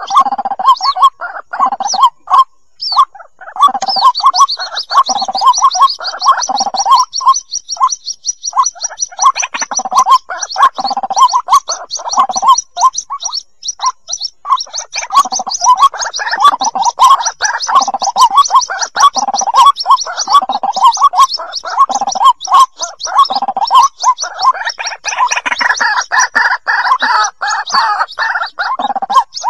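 White-breasted waterhen chicks calling for their parent: a dense run of short, quickly repeated calls. A fast, high-pitched trill runs over them from about four seconds in until near the end.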